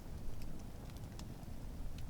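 Wood campfire burning, with several sharp crackles and pops scattered over a low steady rumble.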